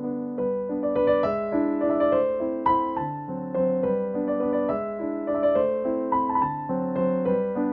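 Background music: piano playing a melody of quick, evenly paced notes over chords.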